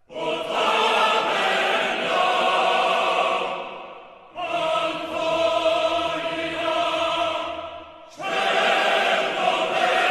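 Background music: three long held chords, each swelling in and fading away over about four seconds.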